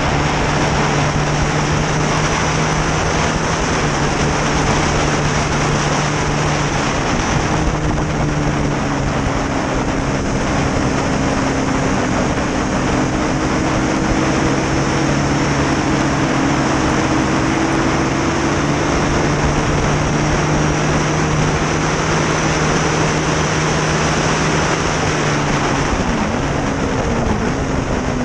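Motorcycle engine running hard at steady high revs under heavy wind rush, its note held level with a brief break about seven seconds in, then falling near the end as the bike slows.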